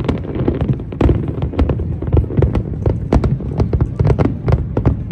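Fireworks going off: a rapid, irregular string of sharp bangs and cracks, several a second, over a continuous low rumble.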